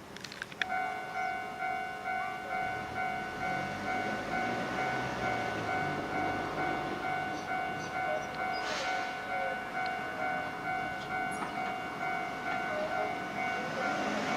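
Japanese level-crossing warning alarm starting up about half a second in, after a couple of clicks. It sounds as a ringing multi-tone 'kan-kan' repeating evenly, a little under twice a second, to signal that a train is approaching.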